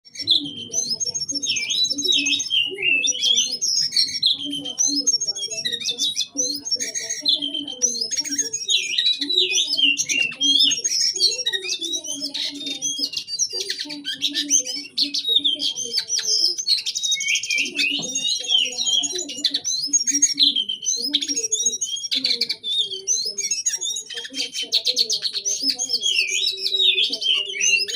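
A cincoang (jongkangan) songbird sings without pause in a fast, unbroken stream of high chirps, sharp notes and rapid trilled 'shots'. A fainter, lower layer of sound runs underneath.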